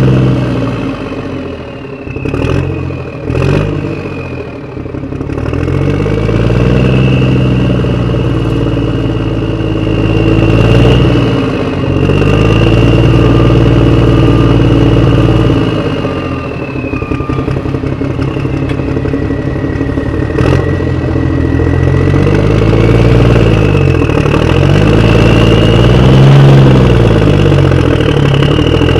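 Vehicle engine running, its pitch repeatedly dropping and rising again as it revs, with a few sharp clicks near the start.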